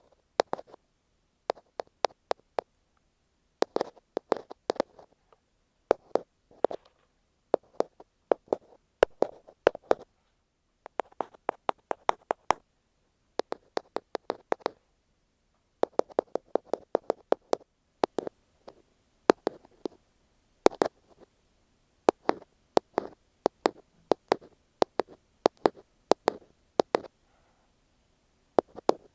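Close, dry tapping on an earphone microphone, ear-cleaning style: sharp taps in quick clusters of several, with short pauses between the clusters.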